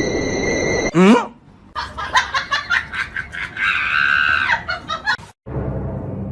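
A person laughing hard in quick bursts, with a short falling shriek about a second in and a high squeal near the middle. It cuts off abruptly.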